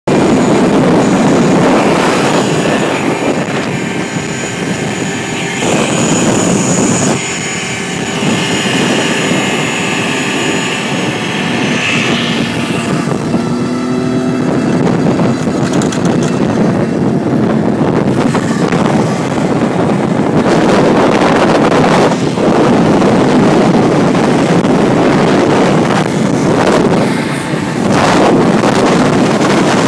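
LAV-25 eight-wheeled armored vehicle driving fast on a dirt road, heard from the open turret hatch: its diesel engine running hard under load, with a steady drivetrain whine through the first half and loud rushing noise from tyres and wind.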